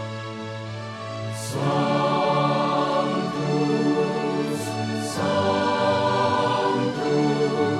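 Background music: a choir singing slow sustained chords, the harmony changing every few seconds.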